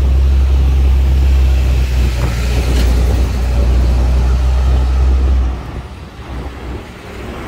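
Road traffic noise with a loud, steady low rumble that drops away about five and a half seconds in, leaving lighter traffic noise.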